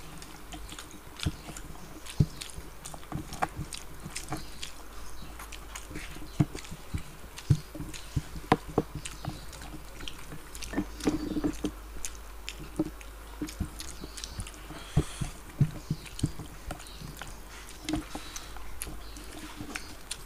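Close-miked eating by hand: irregular wet clicks and smacks of people chewing, and of fingers mixing and scooping rice and curry.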